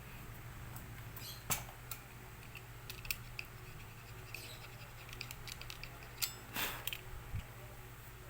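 Light scraping and scattered small clicks of a tool working melted laminating-film plastic off a laminator's rubber roller, with a sharp click about a second and a half in and a short scrape past the middle. A low steady hum runs underneath.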